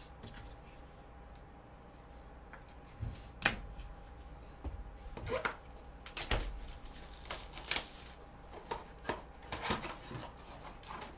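Gloved hands handling a trading-card hobby box and its plastic shrink wrap: quiet for about the first three seconds, then irregular sharp knocks and taps, the loudest about three and a half and six seconds in, with crinkling and rustling in between. A faint steady hum runs underneath.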